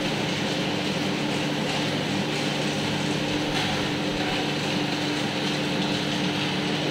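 Stand-mounted axial hot air blower fan running: a steady rush of air with a constant hum.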